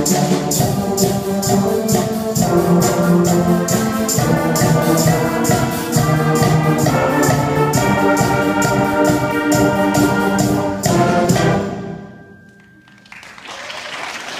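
School concert band playing a driving rock arrangement, brass over steady drum hits, cutting off on a final chord about twelve seconds in. Applause starts about a second later.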